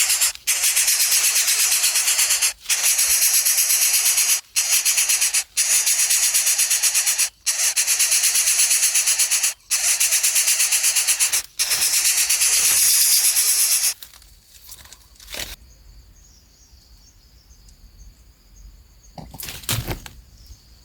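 Loud, harsh, steady hissing with a fine fast pulse, broken by short sudden gaps every second or two, stops abruptly about 14 seconds in. After that comes faint high insect chirring, with two brief rustles near the end.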